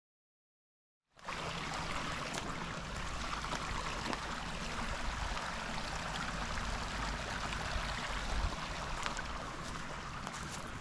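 Silence for about a second, then a small forest stream running steadily over a low rumble, with a few faint clicks near the end.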